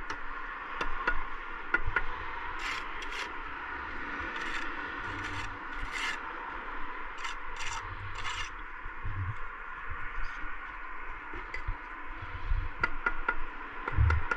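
Bricklayer's steel trowel scraping mortar on clay bricks, in a series of short rasping strokes, then a few light knocks on the brickwork near the end.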